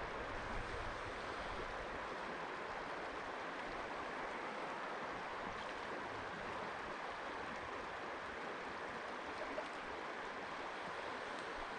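Steady rush and ripple of a shallow, gravel-bottomed trout river flowing past.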